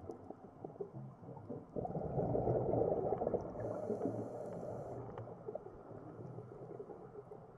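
Underwater sound of a scuba diver's breathing: a low rumbling gush of exhaled bubbles that starts abruptly about two seconds in and slowly fades, with a brief high regulator hiss in the middle.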